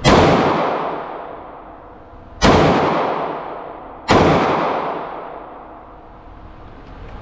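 Three pistol shots in an indoor range, the second about two and a half seconds after the first and the third about a second and a half later. Each shot is followed by a long echo that fades over about two seconds.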